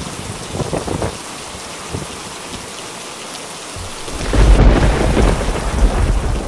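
Rain falling steadily, then about four seconds in a loud, deep rumble of thunder comes in over it.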